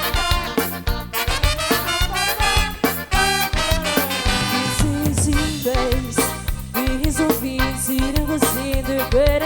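Forró music playing: a steady, danceable drum beat under a held, wavering melody line.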